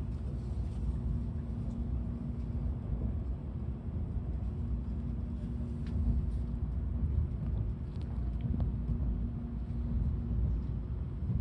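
Cabin noise inside a Tokaido Shinkansen car as the train runs: a steady low rumble with a low, even hum and a few faint ticks.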